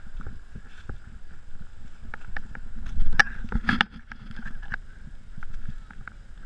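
Scattered crunches and knocks of footsteps on a rocky, leaf-strewn dirt trail, loudest about three seconds in, over a low outdoor rumble and a steady faint high hum.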